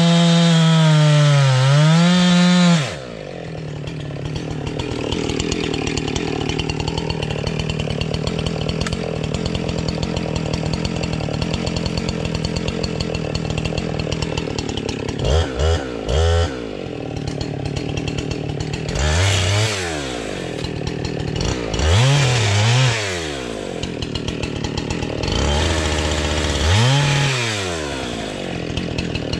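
Husqvarna two-stroke chainsaw bucking logs. It runs at full throttle in the cut, drops to a lower steady idle about three seconds in, then revs up and back down again and again through the second half as it makes further cuts.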